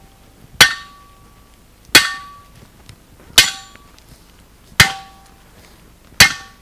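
Sledgehammer blows on a piece of wood set on a galvanized steel fence picket, driving the picket into the ground. Five heavy strikes about a second and a half apart, each leaving a short metallic ring.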